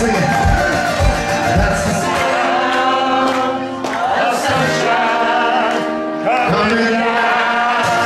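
Live acoustic performance: acoustic guitars strummed while male voices sing, holding two long notes in the middle.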